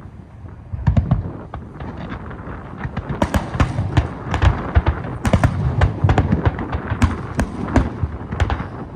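Fireworks display: a rapid, irregular string of bangs and crackles over a low rumble, thin at first and much denser from about three seconds in.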